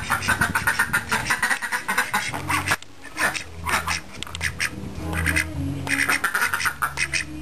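Mallard drake quacking in rapid runs of calls, in three bursts: a long one at the start, a short one about three and a half seconds in, and another long one from about five seconds in.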